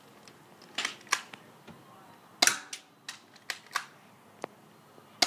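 M1911 airsoft pistol firing single shots: three sharp cracks in the first two and a half seconds, then several lighter ticks and another sharp crack at the end.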